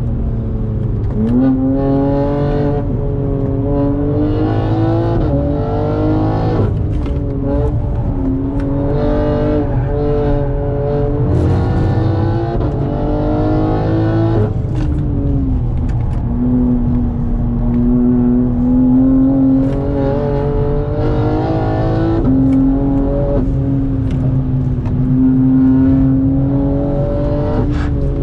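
BMW G80 M3's twin-turbo straight-six heard from inside the cabin on track, its pitch climbing under acceleration and dropping back several times at shifts or braking, over steady low tyre and road rumble.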